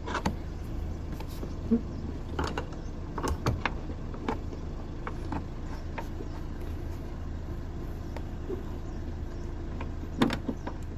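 Scattered clicks and knocks of hand work prising one end of an old gas boot strut off its fitting on a car's tailgate, with a few knocks clustered near the start and another about ten seconds in. A steady low hum runs underneath.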